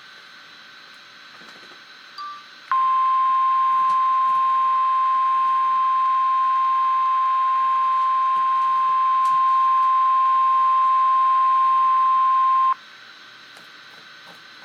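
NOAA Weather Radio 1050 Hz warning alarm tone: one steady, unbroken tone that comes in a few seconds in, holds for about ten seconds and then cuts off, over faint radio hiss. It signals that a severe thunderstorm warning is about to be read.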